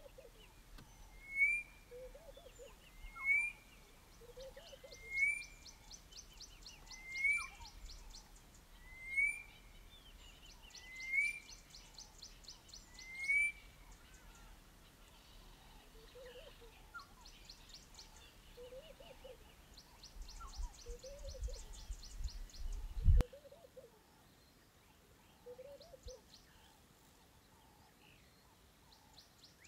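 Several wild birds calling: one sharp rising call repeated about every two seconds for the first half, lower calls in between, and fast high trills. A low rumble runs underneath and stops abruptly at a cut about two-thirds of the way through.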